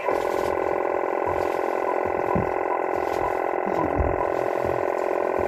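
Two-way radio putting out a steady rush of static from an open, keyed channel, with a narrow, tinny sound; it cuts in abruptly at the start.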